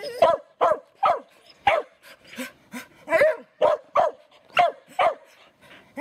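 A dog barking repeatedly at a steady pace, about two short, sharp barks a second.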